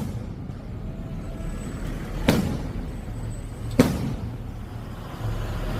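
Two loud firework bangs about a second and a half apart, over a steady low rumble.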